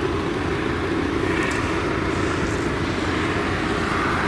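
Steady engine noise of a motor vehicle running close by.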